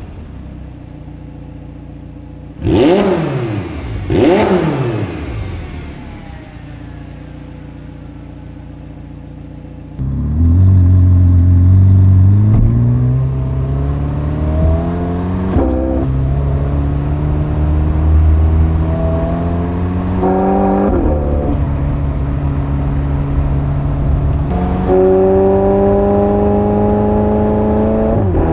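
McLaren 720S twin-turbo V8 running steadily, with two brief whooshes of passing vehicles about three and four and a half seconds in. About a third of the way through the engine gets loud as the car pulls away under acceleration, its revs climbing and falling back several times through gearchanges.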